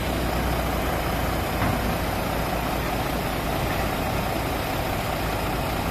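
Heavy diesel engine running steadily, a deep, even rumble.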